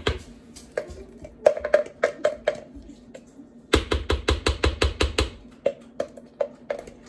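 A spoon knocking and scraping in a mayonnaise jar and against the rim of a food processor bowl, in scattered clicks and taps. About four seconds in comes a quick run of about ten taps as the spoon is knocked clean.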